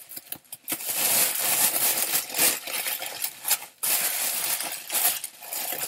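Wrapping paper and shredded confetti rustling and crinkling as a wrapped item is pulled from a box and unwrapped: a dense, irregular crackle of many small clicks with a few brief pauses.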